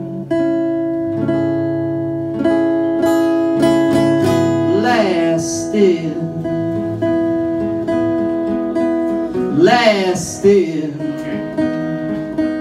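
Acoustic guitar strummed, its chords left ringing between strokes, with a man's singing voice coming in briefly twice, about five and ten seconds in.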